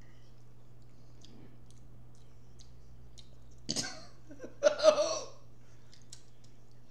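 Faint mouth clicks of eating over a steady low hum, broken a little past halfway by two short vocal noises from one of the eaters, the second louder and longer.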